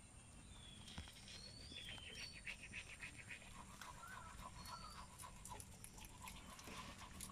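Faint sounds of rabbits nibbling and chewing fresh pennywort leaves, with a quick run of small crunching ticks around the middle, and a few short high whistled chirps in the background.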